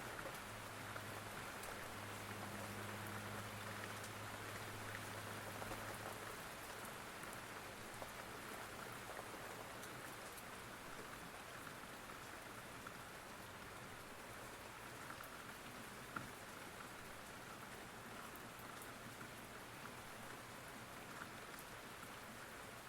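Steady rain falling, an even hiss with fine drop ticks throughout.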